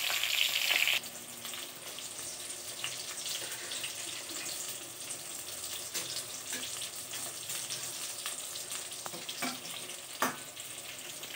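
Slit eggplants sizzling in hot oil in a kadai, louder for the first second and then a quieter steady hiss. A couple of sharp spatula knocks against the pan near the end as the eggplants are turned.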